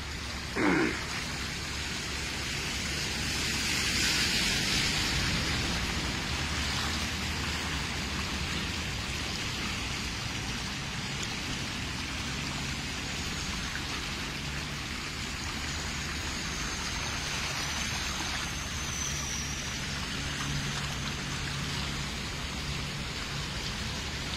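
Steady hiss of heavy rain heard from inside a car, swelling for a few seconds early on, with a low steady hum of the car underneath. A short falling sound comes just under a second in.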